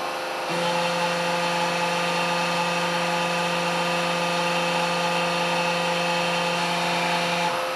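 Electric motor and hydraulic pump of a hose crimping machine running with a steady hum. A lower steady tone joins about half a second in and drops out shortly before the end as the dies are cycled, part of the repeated crimp and retract strokes used to bleed air from the hydraulic cylinder.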